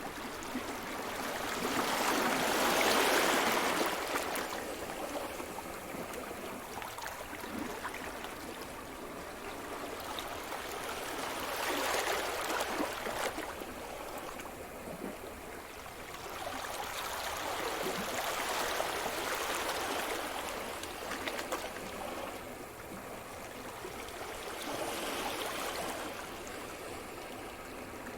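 Sea surf: waves break and wash up the shore in a rushing hiss that swells and fades four times, roughly every six to nine seconds.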